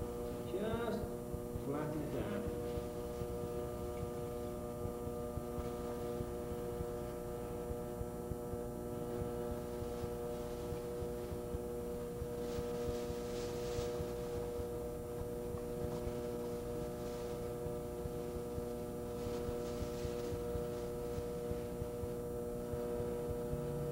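Steady electrical hum made of several even tones. Two brief soft hissing scrapes come about halfway through and again about 20 seconds in, from wet clay being worked by hand on a spinning potter's wheel.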